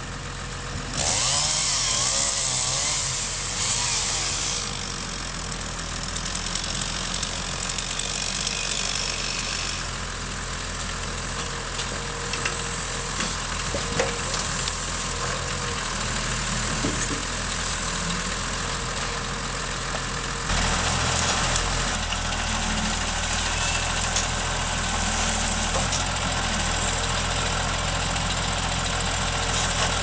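John Deere 3650 tractor's six-cylinder diesel engine running steadily while it drives a hydraulic log-loading crane. It runs louder from about twenty seconds in.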